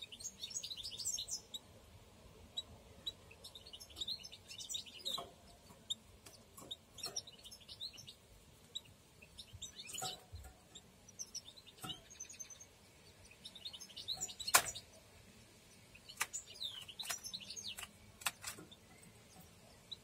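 Canaries in the nest chirping: short, high cheeps in scattered bursts, some dropping in pitch. Sharp knocks and rustles come in between, the loudest about two-thirds of the way in, as the bird shifts against the nest lining close by.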